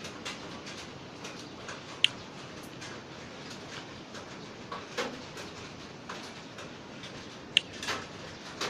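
Fidget spinner being handled: scattered light clicks and rattles over a faint steady hiss, with two sharp ticks, one about two seconds in and one near the end.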